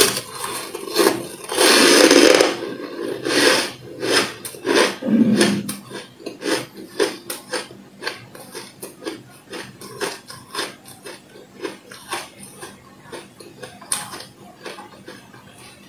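Chunk of freezer frost crunched in the mouth: a loud crunching bite about two seconds in, then steady crisp chewing crunches, about three a second.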